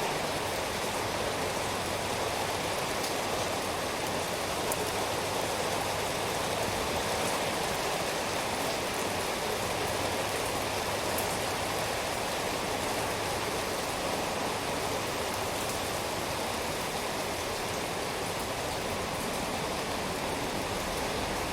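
Steady rain falling, a dense even patter with a few faint drop ticks here and there.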